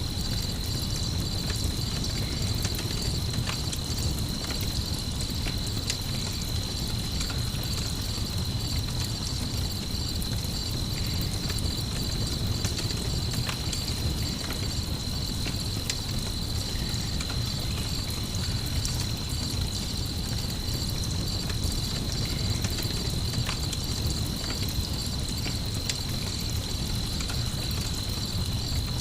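Steady chorus of crickets chirping over a low rumble, with scattered small crackles of a campfire.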